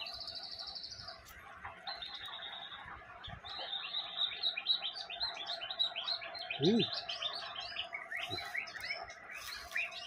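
White-rumped shama singing in full voice: rapid high trills at the start and again about two seconds in, then from about three and a half seconds a dense, fast run of varied whistled and chattering notes.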